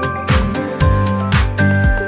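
Upbeat background music with a steady drum beat, about two low drum hits a second, under held melody notes.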